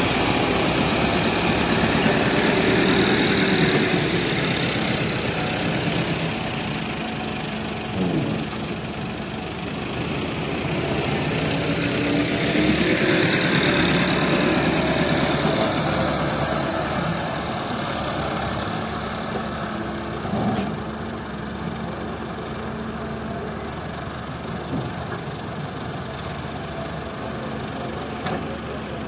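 Tractor diesel engine running, swelling louder with sweeping changes in pitch in the first few seconds and again about halfway through, then settling to a steadier, quieter run.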